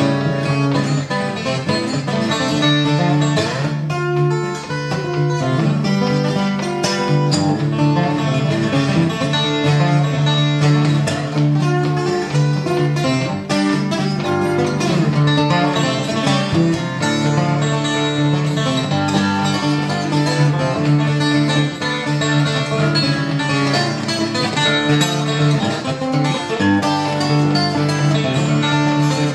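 Solo acoustic guitar played fingerstyle: a steady picked bass under a busy plucked melody.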